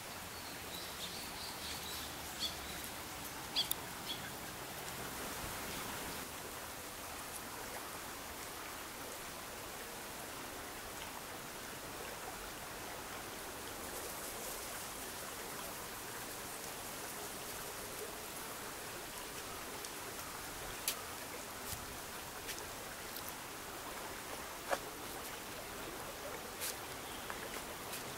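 Steady outdoor background hiss, with a few short high bird chirps in the first few seconds and scattered faint clicks.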